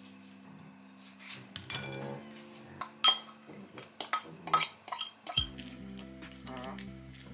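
Metal fork clinking and scraping against a ceramic bowl and plate as diced avocado is scraped out onto toast, with a cluster of sharp clinks about three to five seconds in. Soft background music plays throughout.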